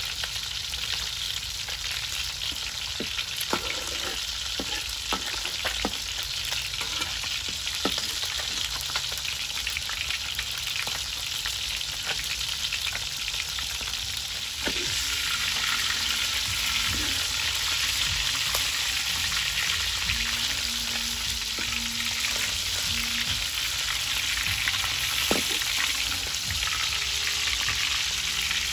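Fish frying in hot oil: a steady sizzle with scattered pops and crackles, getting louder about halfway through.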